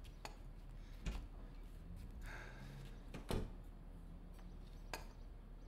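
A few faint, scattered clicks and light knocks of tableware in a quiet room, the plainest a little over three seconds in.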